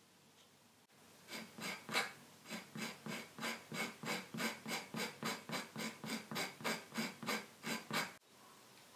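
A flat tool rubbed back and forth along the edge of a leather piece, a scratchy stroke about three times a second. It starts about a second in and stops shortly after eight seconds.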